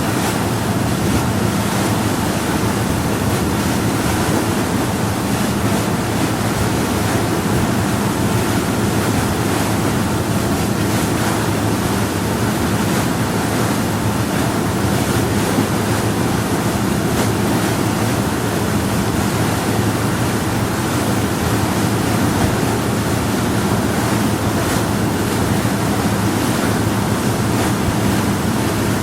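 Power yacht underway at a steady speed on calm water: a low, even engine hum under the rush of water along the hull.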